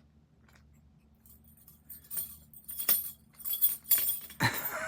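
A lock being raked with a pick: quick, irregular metallic clicks and jingling as the rake scrapes the pins and the lock body rattles. A short vocal sound comes near the end.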